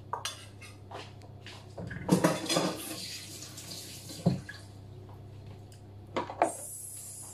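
A metal bowl and dishes being handled in a kitchen: scattered clinks and knocks, with a busier clatter about two seconds in and a sharp knock a little after four seconds.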